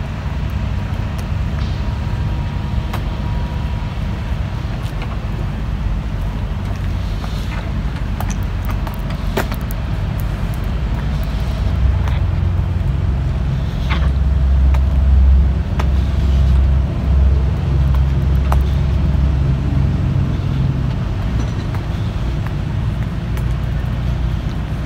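Steady low rumble of the standing Amtrak Empire Builder's idling diesel locomotives during a refueling stop, growing louder about halfway through.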